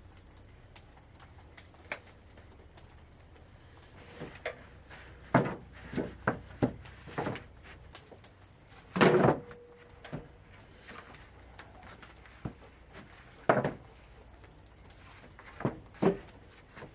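Cedar boards knocking and thunking as they are handled and set down, at irregular intervals. The loudest knock comes about nine seconds in, with a short ring after it.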